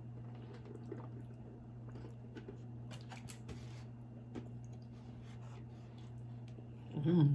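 Quiet chewing: faint wet mouth clicks and small squishy ticks of someone eating, over a steady low hum. Near the end comes one short voiced sound from the eater, louder than the chewing.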